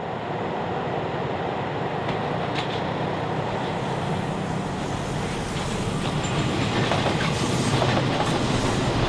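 Train running on the rails: a steady rumble that grows a little louder near the end, with a few faint clicks about two seconds in.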